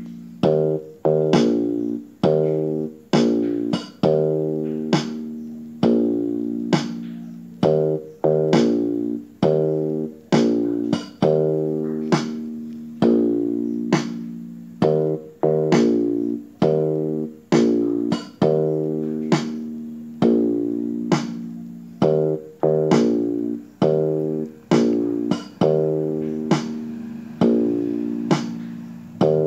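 Background music: plucked guitar notes repeated about once a second, each struck sharply and then fading.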